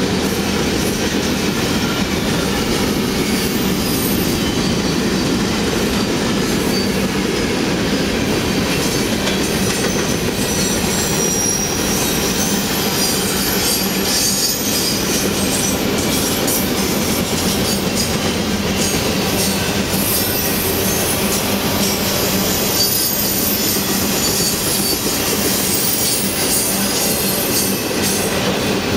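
Long CSX freight train of hoppers, tank car and autorack cars rolling steadily past: a constant rumble of wheels on rail, with thin high-pitched wheel squeals coming and going.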